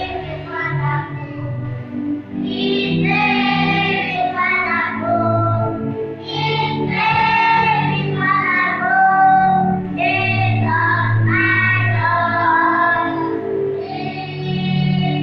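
A song: a high voice singing held melodic phrases over instrumental accompaniment.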